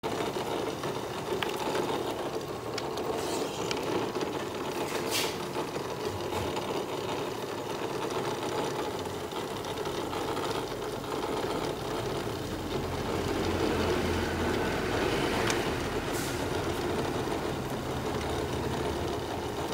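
Paper-core labeling machine running: a steady mechanical whirr with a few sharp clicks, and a lower hum joining about halfway through.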